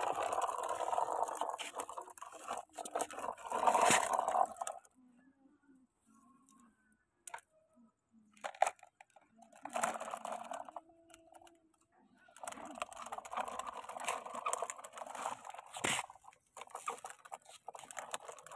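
Gritty scraping and crunching as a hollow clay brick is handled and laid into a plastic toy dump truck's bed, in several stretches with quieter gaps and a few sharp knocks between.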